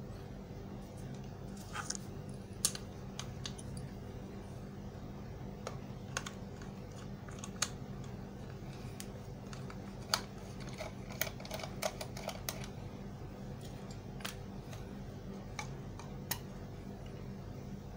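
Scattered small clicks and taps of a screwdriver and hands working on a plastic juicer housing as its base screws are undone and the base is pulled off, over a steady low hum.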